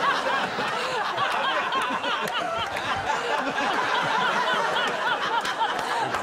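A studio audience laughing: many voices at once, steady throughout.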